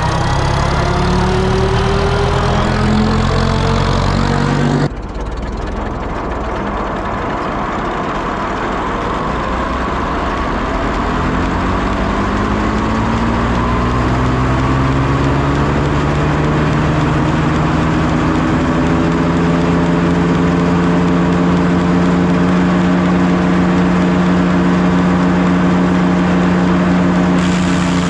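International Harvester Super W-6 tractor's four-cylinder engine running while it powers an old wood planer. After a sudden cut about five seconds in, the engine's pitch rises steadily for several seconds, then holds.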